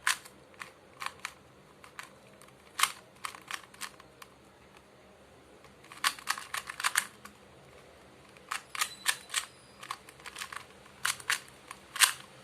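2x2 Rubik's cube being turned fast by hand: bursts of sharp plastic clicks as the layers snap round, with short pauses between the bursts.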